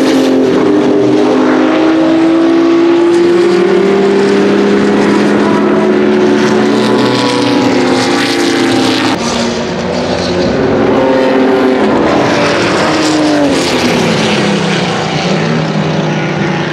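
Porsche 935 K3 race cars' twin-turbo flat-six engines running hard at speed. Their pitch drops about halfway through and slides down again near the end.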